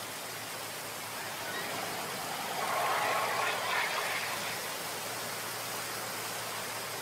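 Steady rush of running water, swelling for a couple of seconds in the middle, with a faint low hum underneath.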